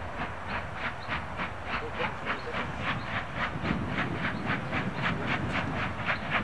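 Steam locomotive chuffing evenly at about four exhaust beats a second.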